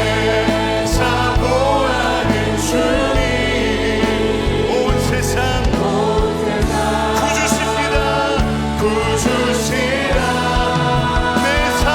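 Church praise team singing a contemporary worship song, with live band accompaniment.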